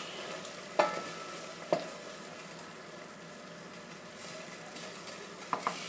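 Risotto sizzling and simmering in a pot as it is stirred with a spoon, the spoon knocking against the pot a few times.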